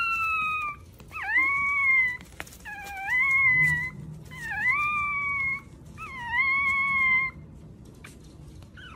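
A dog howling: five long, high calls in a row, about one every one and a half seconds. Each call dips at its start and then rises to a held note.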